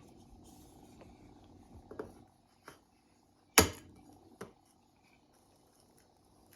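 Quiet kitchen handling of eggs and a bowl: a few light taps, then one sharp knock about three and a half seconds in and a smaller one just after.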